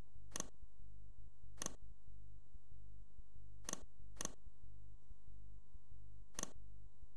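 Computer mouse button clicking five times at uneven intervals, two of the clicks about half a second apart, over a steady low electrical hum.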